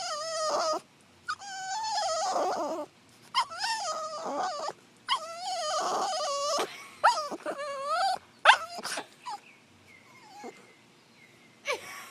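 A dog whining and crying in long, wavering cries, then shorter, sharper yelps about two-thirds of the way through, fading to quieter whimpers. It is frustrated, crying for a ball it won't give up.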